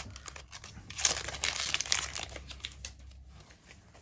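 A Pokémon booster pack's foil wrapper crinkling and tearing as it is opened. The crackle is loudest about a second in, then fades.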